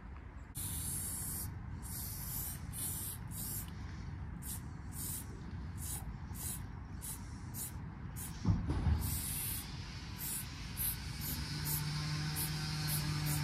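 Aerosol spray paint can spraying onto a wall in about twenty separate hissing spurts, a few longer ones first and then many quick short bursts of fine detail work. A dull thump comes about eight and a half seconds in, and a low steady hum comes in near the end.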